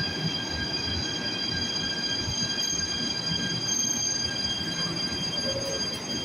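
Athens Metro train running alongside an underground platform: a low rumble with a steady high, several-toned whine over it.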